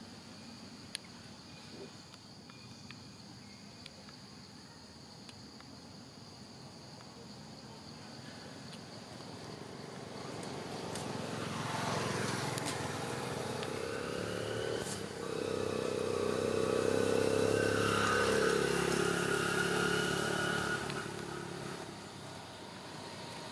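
A motor vehicle's engine approaches, grows loudest about two-thirds of the way through, then fades near the end. Before it, steady high insect drones are faintly heard.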